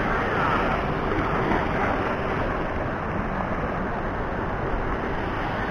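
Steady wind noise buffeting the microphone, mixed with small waves washing onto the beach.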